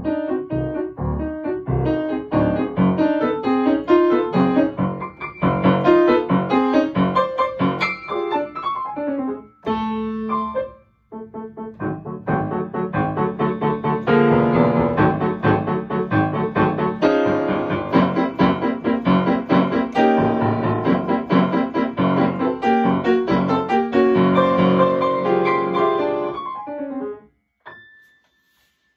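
Solo grand piano playing a dense, fast-moving contemporary piece with many rapid notes. A held chord and a brief silence come about ten seconds in, then the playing resumes and stops suddenly near the end.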